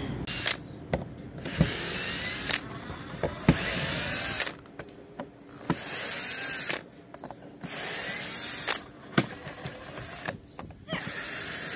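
Power drill running in about four short bursts, its motor pitch wavering as it backs screws out of teak deck boards, with sharp clicks and knocks between the bursts.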